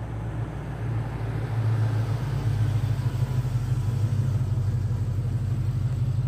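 2000 Chevy Silverado pickup driving past, its exhaust note coming through long-tube headers and a true dual exhaust with a Magnaflow muffler. It grows louder over the first two or three seconds as the truck nears, then holds steady as it goes by.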